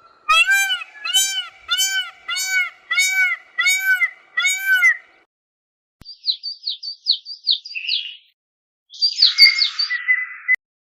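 Animal calls from several separately cut recordings. First come about eight evenly spaced calls, each rising then falling in pitch. A quick run of short, high, falling chirps follows, and near the end a brief high call over a hiss.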